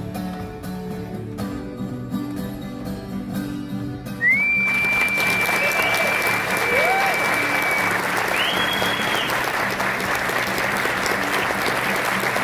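Acoustic guitar playing a lively tune. About four seconds in, the audience breaks into loud applause with a long whistle and a couple of shorter ones, the guitar still going underneath.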